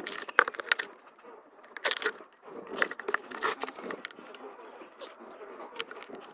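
A hand-held cutter working into a thin plastic paint bucket, making irregular scraping and crackling strokes in short bursts.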